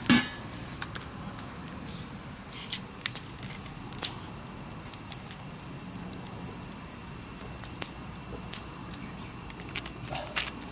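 Wood campfire crackling: irregular sharp pops and snaps, the loudest right at the start, over a steady high insect-like chirring.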